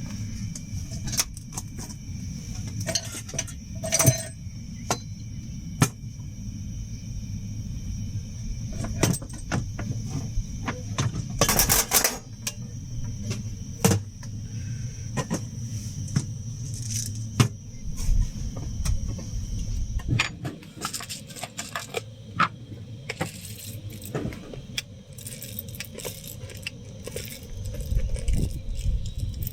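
Repeated light metallic clinks and rattles, as of gear being handled, over a steady low rumble that briefly drops out a little past halfway.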